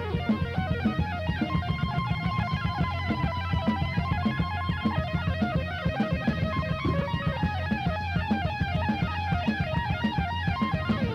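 Live heavy metal band playing an instrumental passage: distorted electric guitar over bass and fast, driving drums. A guitar holds one long note that bends slightly upward about four seconds in, then plays fast runs of notes in the second half.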